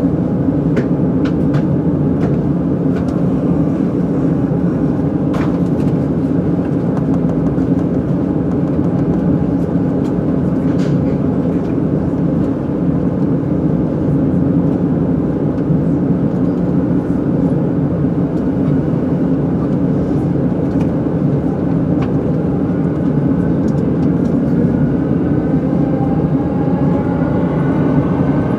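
Steady rumble of a commuter electric train running on the rails, heard from inside the carriage, with a few faint clicks. Near the end a whine comes in, rising in pitch.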